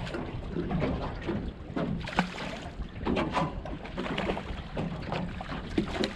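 Wind buffeting the microphone aboard a small fishing boat, with water against the hull and scattered light knocks and clatter.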